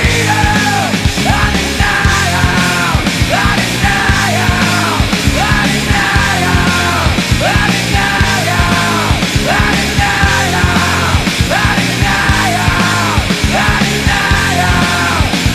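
Loud rock music with a driving beat and yelled vocals.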